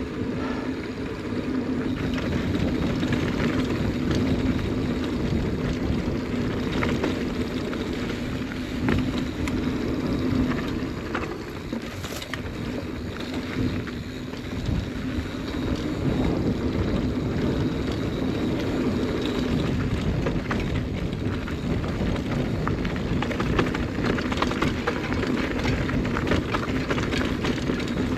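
Mountain bike rolling down a loose dirt trail: a steady rush of wind with constant rattles and clicks as the tyres and bike go over the rough ground.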